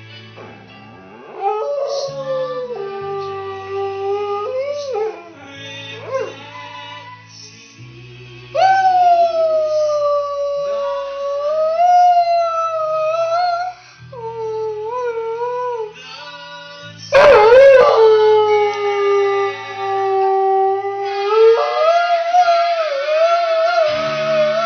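Saluki howling along to music: a run of about five long, wavering howls, each lasting a few seconds, some sliding down in pitch and others rising and held. The loudest howl starts about two-thirds of the way through.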